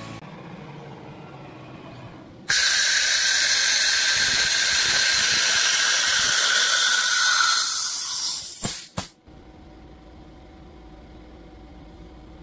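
Compressed air hissing from a CNC router's automatic tool-change spindle while it loads a 5 mm drill from the tool rack. The hiss starts suddenly about two and a half seconds in, lasts about six seconds, fades, and is followed by two sharp clicks.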